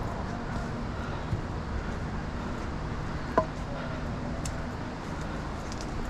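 Steady rushing noise of river rapids, with one sharp click about three and a half seconds in.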